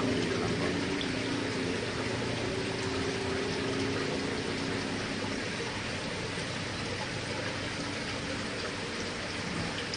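Steady water noise from the aquarium tanks' filters and aeration, water splashing and bubbling. A low hum underneath fades out about halfway through.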